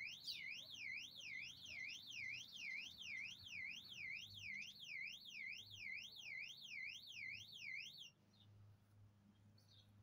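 Electronic alarm warbling, its pitch sweeping up and down about two and a half times a second, then cutting off suddenly about eight seconds in.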